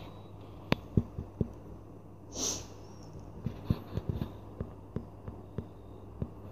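Steady low hum with scattered small clicks and taps, and one short breathy hiss about two and a half seconds in.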